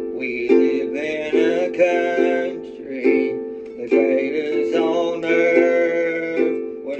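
A ukulele strummed in steady chords, with a man singing over it.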